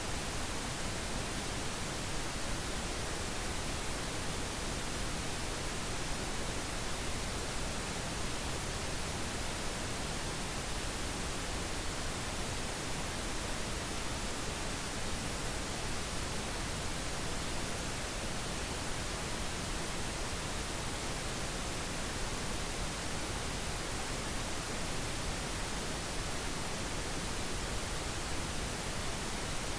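Steady synthetic pink noise: an even hiss spread across all pitches, unchanging throughout.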